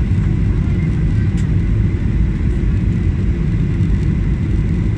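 Cabin noise inside a Boeing 737-800 on approach with flaps out: a steady low rumble from the CFM56-7B engines and airflow, with a faint steady high whine above it.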